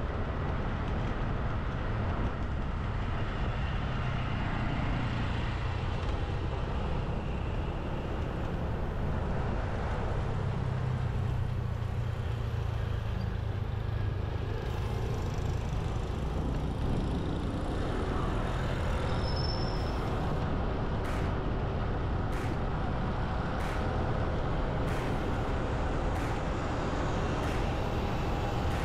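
Steady road and traffic noise from a moving vehicle in city traffic: a continuous low rumble of engines and tyres, with a few light clicks in the second half.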